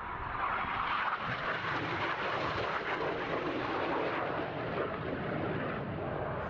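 Two BAE Hawk T1 jets making a close opposing pass: turbofan jet noise that swells over the first second, then stays loud and steady.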